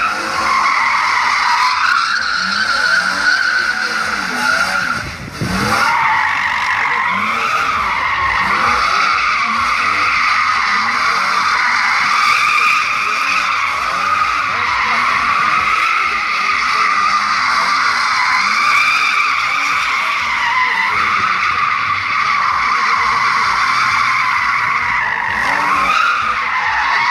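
BMW E34 535i drifting in circles, its tyres squealing continuously with a wavering pitch, while the M30B35 straight-six revs up and down underneath. The squeal breaks off briefly about five seconds in.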